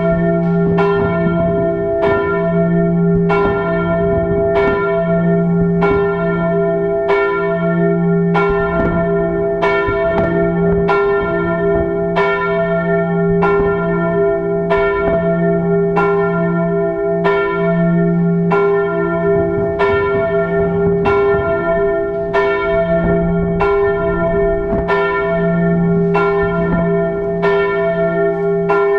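Church bells pealing: a strike about every second, each ringing on over a steady hum of several tones.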